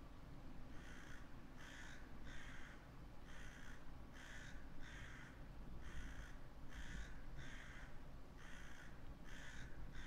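A crow cawing in sets of three, four sets in a row, the caws evenly spaced, over a low wind rumble.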